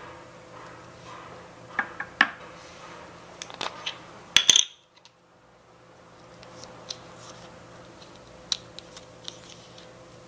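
Small clinks and taps of miniature ceramic dishes and utensils on a countertop while ingredients are added, the loudest a short ringing clink about four and a half seconds in, followed by softer scattered taps.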